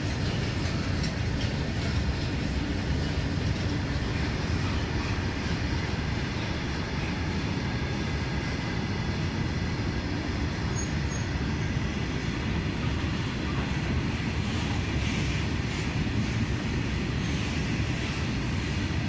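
Freight train of hopper wagons rolling steadily past on the rails: a continuous low wheel-and-rail noise with a few faint clicks.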